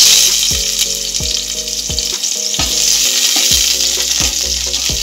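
Chopped onion hitting hot mustard oil in a wok, sizzling loudly the instant it goes in and holding a steady hiss as a spatula stirs it.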